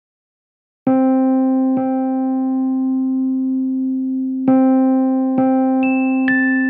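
Background music: slow electric piano notes. A low note is struck about a second in, struck again and left ringing, and then more notes come in with a higher melody near the end.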